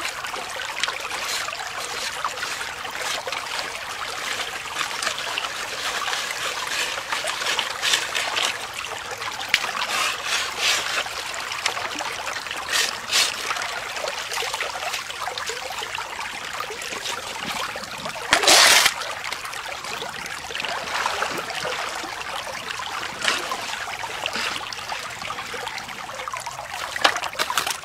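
Creek water running steadily through a bazooka gold sluice, with a few brief sharper sounds as cobble and gravel are worked into it; the loudest comes about two-thirds of the way through.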